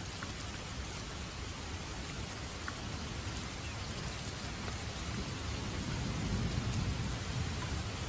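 Steady rain falling, with faint ticks of individual drops. A low rumble swells and fades in the second half.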